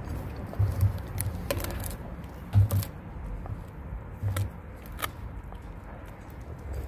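A large dog chewing a whole raw fish: irregular wet crunches and sharp cracks as its teeth bite through the fish, with dull low thumps in between.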